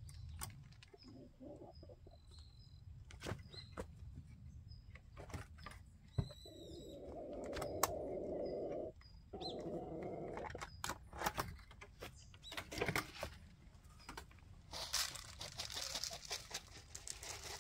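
Wooden slats and boards of a chicken coop being handled: scattered knocks and clatter, with a longer rubbing sound in the middle. Chickens and small birds call now and then.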